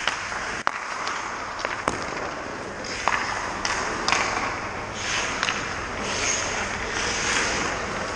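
Ice skate blades scraping and hissing on rink ice, with several sharp clacks of hockey sticks and pucks spread through it.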